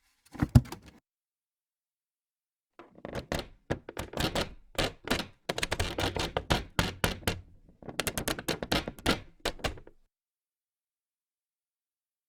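Wood sound effects: one short wooden knock, then after a pause a long, irregular run of sharp wooden clicks and cracks in three clusters, like wood being strained and splitting.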